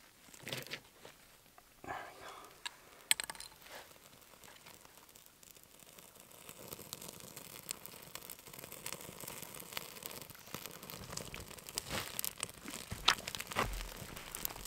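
Ferro rod scraped with a knife spine onto birch bark a few times, then the birch bark catching and crackling as it burns. The crackle builds steadily, with a few louder snaps near the end as thin dry sticks are laid over the flames.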